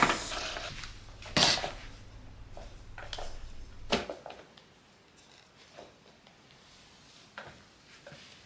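Hard plastic knocks and clacks from a spin mop and its foot-pedal wringer bucket, the loudest about a second and a half in and again about four seconds in, followed by faint scattered scrapes and taps of the mop on the floor.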